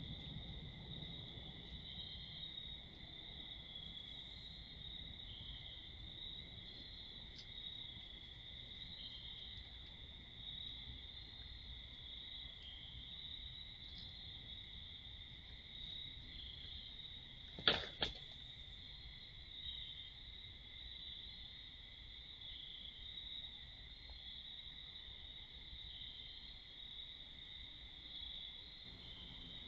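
A steady chorus of night insects: one continuous high tone with a higher band pulsing over it. About two-thirds of the way through, two sharp knocks a fraction of a second apart as a plastic skeleton decoration is pulled over and clatters onto the paving.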